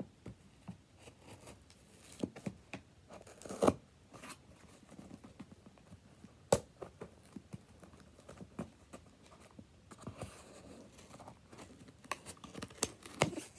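Cardboard shipping box being opened by hand: packing tape and cardboard tearing, with scattered clicks and knocks of handling. Two sharper knocks come about four and six and a half seconds in, and a stretch of rustling near the end.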